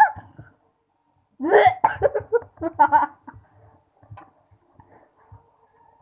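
A person's voice: a short vocal outburst about a second and a half in, lasting under two seconds, then faint scattered clicks.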